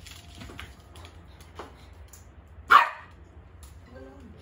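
A poodle barks once, short and sharp, about three seconds in.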